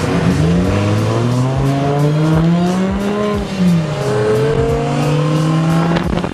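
Car engine accelerating hard, its pitch climbing for about three seconds, then falling sharply at a gear change about halfway, then climbing again and holding.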